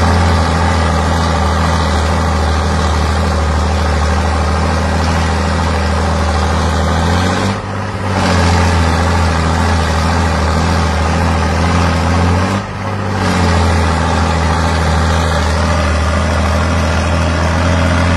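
Two big tractor diesel engines held at full load in a tug-of-war, a steady deep drone, briefly dipping twice.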